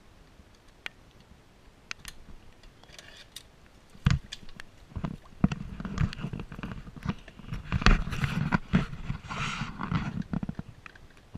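Gloved hands working in shallow stream water and mud: a few small clicks at first, then, from about four seconds in, a busy stretch of splashing, sloshing and knocks that dies away near the end.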